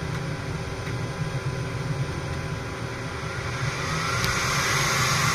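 A 3D printer's filament feed motor whirring with a steady low hum while it drives filament through the feeder, growing louder and brighter over the last second or two.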